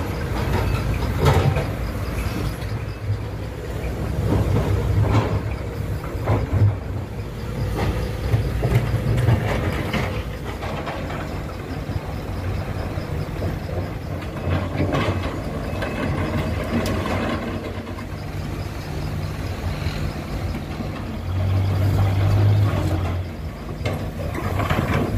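Sumitomo hydraulic excavator's diesel engine running under varying load, its hum rising and falling as it works, with irregular knocks and clunks of rock being handled and dropped into a steel dump-truck bed.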